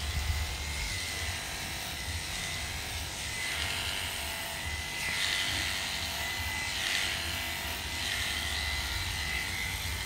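Electric dog grooming clippers with a number 10 blade running steadily, a constant high whine over a low hum. Several times from the middle on, the blade passing through the dog's coat adds a rougher hiss.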